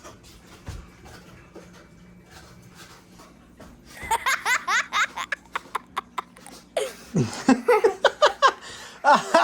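A few quieter seconds with a faint steady hum, then hearty laughter that comes in rapid bursts rising and falling in pitch, starting about four seconds in and picking up again near the end.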